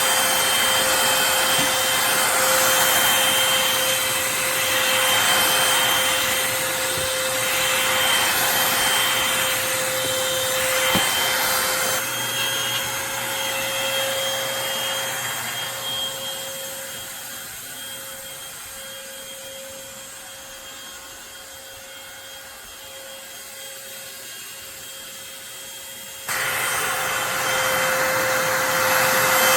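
Eureka corded stick vacuum running with a steady whine over a rushing hiss as it is used on the floor. It grows quieter past the middle, then becomes suddenly louder again near the end.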